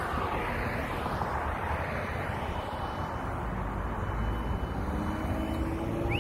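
Steady engine and machinery noise, dense and even, with a thin high whine held through most of it and a short rising tone right at the end.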